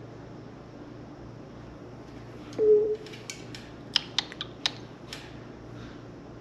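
African grey parrot in a small room giving one short, steady low note, then a quick run of sharp clicks and taps a second or so later.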